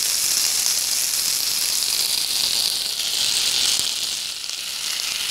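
Onion-tomato masala sizzling steadily in a frying pan, the sizzle dipping briefly about four seconds in as raw chicken pieces are added.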